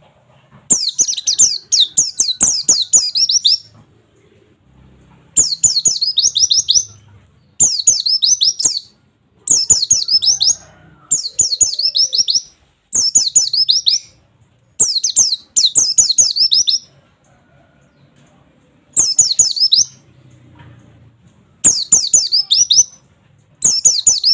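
White-eye (pleci) singing its rapid 'nembak' song: about ten bursts of fast, high 'wit wit wit' chirps, each lasting one to three seconds, with short pauses between them.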